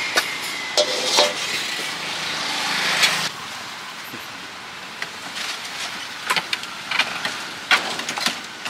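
Plastic baskets clattering against a metal wok, with a short metallic ring, then steady street traffic noise with a few scattered knocks as a block of ice is set into a plastic cooler.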